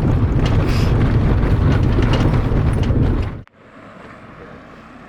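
Wind buffeting the microphone in a loud, rough low rumble that cuts off abruptly about three and a half seconds in, leaving quiet outdoor ambience.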